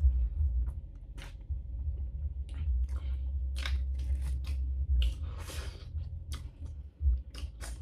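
Close-up eating sounds: wet chewing, smacks and mouth clicks as a mouthful of fufu with egusi soup is chewed. A longer smacking, sucking stretch comes around five seconds in as the fingers are licked.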